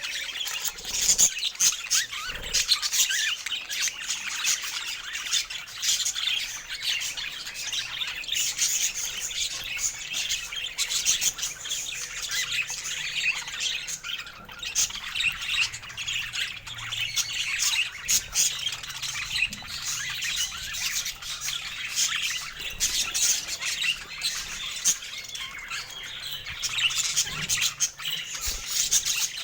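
Budgerigars chattering and chirping without pause, many short calls and squawks overlapping, as from a group of birds.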